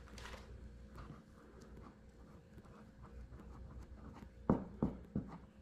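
Hands working modeling clay into a deer ear's plastic ear liner: faint handling and rubbing, with a brief rustle at the start. Three dull knocks come close together near the end, the loudest sounds here.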